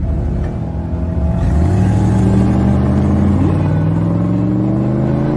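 Cartoon car engine sound effect that starts abruptly and runs steadily, its pitch rising slowly as the vehicle accelerates.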